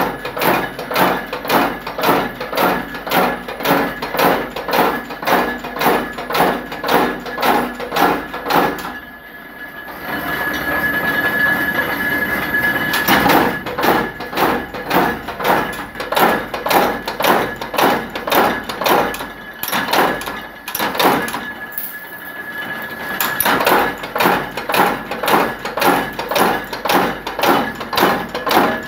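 Power press stamping external circlips out of steel strip: a steady run of metallic strokes at about two a second, stopping briefly twice, over a steady high machine whine.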